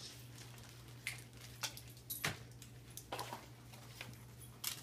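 Scattered light knocks and clicks of toys and packaging being handled, over a faint steady low hum.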